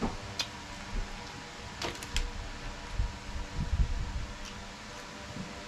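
Fingers handling oyster shells and meat: a few light shell clicks, then soft low handling bumps. A steady faint hum runs underneath.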